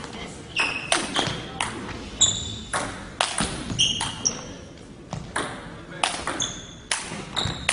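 Table tennis rally: the ball clicking off paddles and table, irregularly and roughly two hits a second, several hits with a short high ring.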